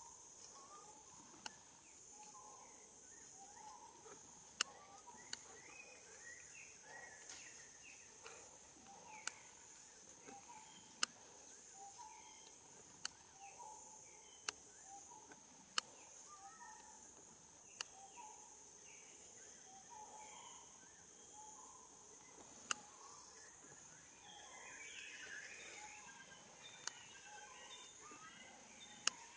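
Forest ambience: a steady, high, pulsing insect drone with scattered short chirps throughout. Sharp single clicks stand out every second or few, the loudest sounds.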